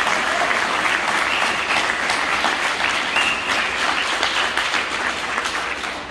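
Crowd applause, many people clapping together, which begins dying away near the end.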